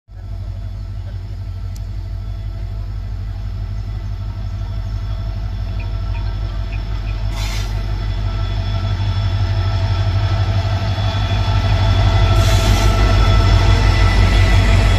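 Diesel locomotive arriving at a station: its engine's steady low drone grows louder as it approaches and passes close by, with two short bursts of hiss about 7 and 12 seconds in.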